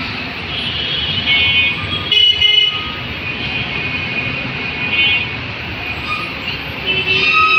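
Street traffic with vehicle horns honking again and again over a steady engine rumble. Several horns overlap, and the loudest blast comes about two seconds in.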